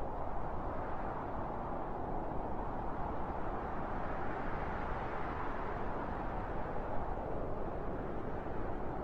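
Steady rushing wind, swelling in a gust around the middle and easing off again.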